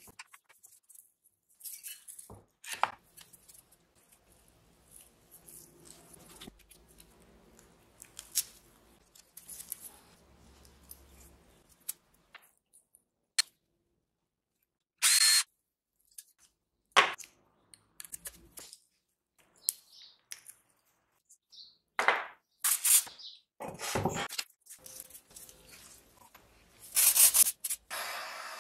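Hand tools working on rusty metal parts of a small engine and frame: scattered clinks, taps, knocks and scrapes. Near the end comes a short steady hiss as a torch flame heats a part held in a gear puller.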